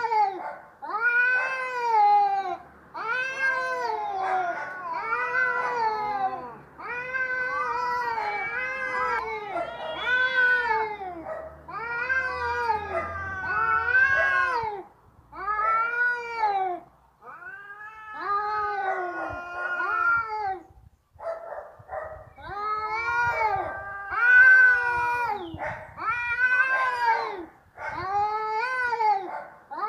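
Cat yowling over and over in a string of drawn-out calls about a second each, each rising and then falling in pitch, with two voices overlapping at times. These are the angry, wanting-to-fight calls of cats squaring up.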